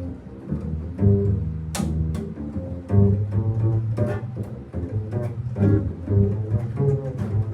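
A band playing a tune together in rehearsal, with a prominent bass line under chords and cymbal strikes, the loudest crash about two seconds in.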